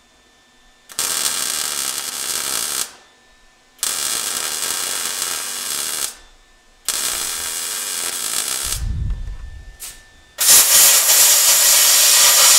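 MIG welder laying three short welds, each a crackling burst of about two seconds with brief pauses between. About ten seconds in, a compressed-air blow gun starts hissing steadily on the fresh weld, cooling it so the metal doesn't move or warp.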